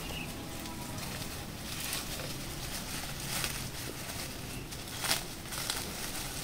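Leaves and twigs of a bushy potted bonsai rustling as hands work through its branches, with a few small clicks, the loudest about five seconds in.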